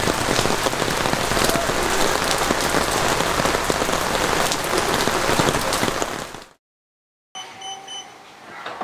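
Heavy rain pouring down and pattering on a paved walkway, a dense steady hiss that cuts off abruptly about six and a half seconds in.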